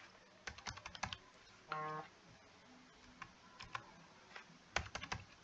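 Faint clicking from a computer keyboard and mouse, in scattered small groups, with a quick run of clicks near the end.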